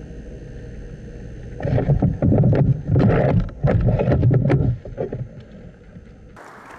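Loud rustling and buffeting noise on the rifle-mounted camera's microphone, in several bursts with crackles lasting about three seconds.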